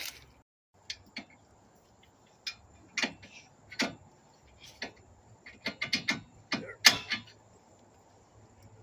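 Scattered metallic clicks and knocks of tools and parts being handled, with a quick run of clicks about six seconds in and the loudest knock just after.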